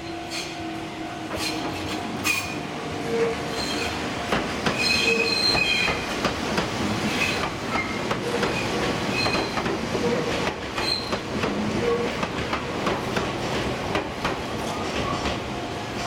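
Enoshima Electric Railway (Enoden) train running through a level crossing: wheels squealing on the rails and clacking over rail joints. The crossing's electric warning bell rings under it.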